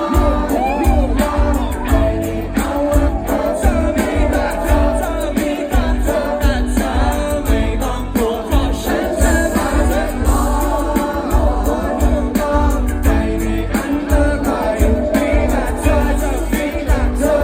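Live concert music: a singer over an amplified pop band with a steady beat, with the crowd's voices mixed in.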